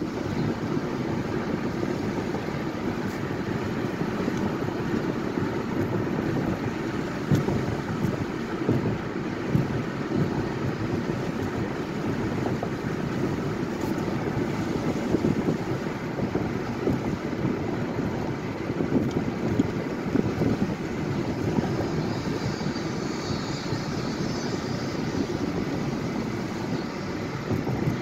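A car driving at road speed: a steady rumble of tyre and engine noise, with uneven wind buffeting on the microphone.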